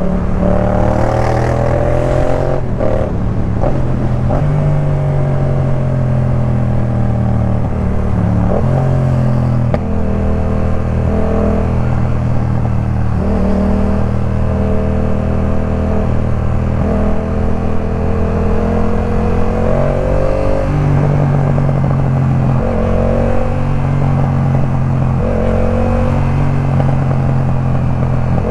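Yamaha MT-07's parallel-twin engine through a Jeskap K4 full aftermarket exhaust, ridden on the road. Its pitch climbs gradually and drops back at each gear change several times, with steadier cruising stretches in between.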